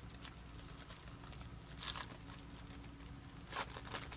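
Sports-card packaging being torn open and crinkled, in two short bursts about two seconds apart, over a faint steady hum.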